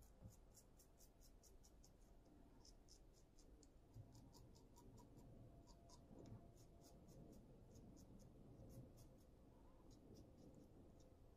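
Safety razor blade cutting lathered stubble on the upper lip and chin: faint, quick scratchy strokes, several a second, in short runs.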